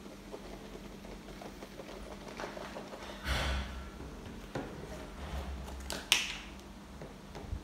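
A glass jar with a plastic snap-on lid being handled: a short swish about three seconds in as the lid is pressed on, a light click after it, then a sharp snap with a brief hiss as the lid is pulled off about six seconds in.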